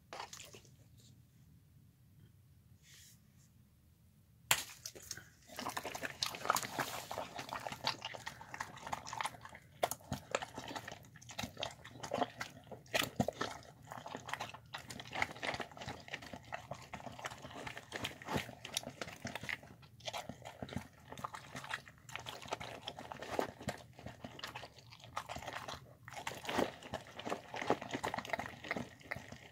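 A bulldog-type dog eating soft cooked rice, chicken and lentils from a bowl: quick, continuous chewing with many small clicks and crunches, starting suddenly about four seconds in after a quiet start.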